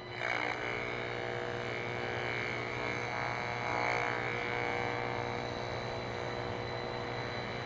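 Steady, harsh electrical buzz from an RF meter's audio output as it picks up the microwave leakage from a running microwave oven, the oven's emission signature; it starts abruptly just after the oven is switched on.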